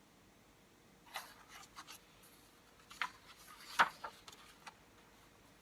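Pages of a paper picture book being handled and turned: a handful of short rustles and swishes, the sharpest about two-thirds of the way through.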